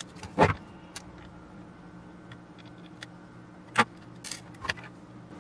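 Scattered sharp metallic clicks and clinks of small tools and parts being handled as the control box is taken apart. The loudest comes about half a second in, with a few more near the end.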